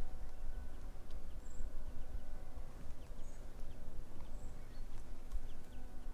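Open-air mountainside ambience: an uneven low rumble of wind on the microphone, with faint short high bird chirps every second or so.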